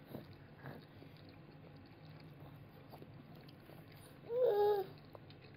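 A toddler's short, high-pitched vocal sound, a brief hum or babble about four seconds in, its pitch stepping down partway. Before it there is a quiet room with a couple of faint clicks in the first second.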